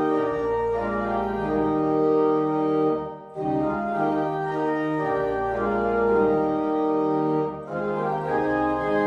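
Organ playing slow, sustained chords, with short breaks between phrases about three seconds in and again near the end.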